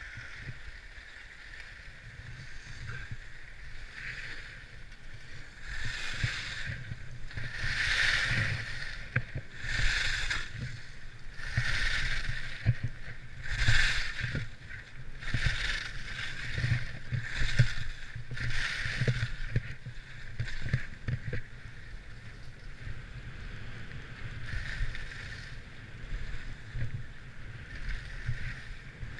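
Skis scraping and hissing across packed snow in a run of turns, a surge about every two seconds that is strongest through the middle, over a steady low rumble of wind on the microphone.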